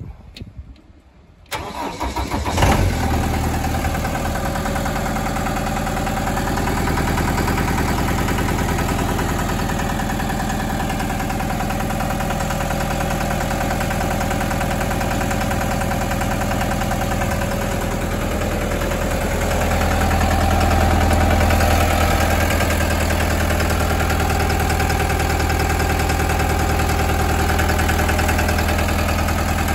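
Vermeer SC802 stump grinder's Deutz diesel engine turned over with the key and catching within about a second, a quick start, then idling steadily. It runs a little louder for a few seconds past the middle.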